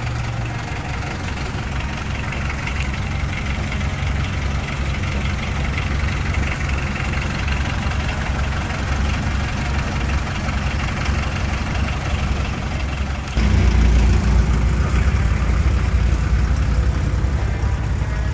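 Vehicle engines idling and rolling slowly past, a steady low rumble. About 13 seconds in it suddenly turns louder and deeper as a Volkswagen Rabbit pickup pulls by close.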